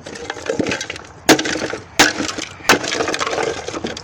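Wooden speaker cabinet being smashed apart: three sharp blows about two-thirds of a second apart, starting a little over a second in, with wood cracking and splintering between them.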